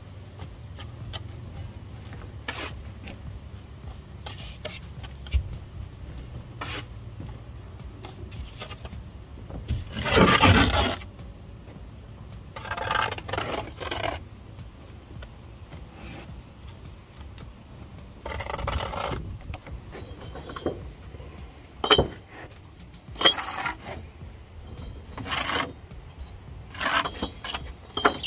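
Bricklayer's steel trowel scraping and spreading mortar along a course of bricks, with scattered scrapes and clinks of the trowel against brick. The longest and loudest scrape comes about ten seconds in.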